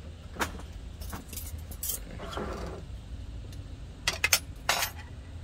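Tableware clinking as a ceramic rice bowl on its plate, with a metal serving spoon in it, is set down and shifted among other dishes. The clinks come as scattered sharp clicks, with a quick cluster of the loudest ones about four seconds in, over a low steady rumble.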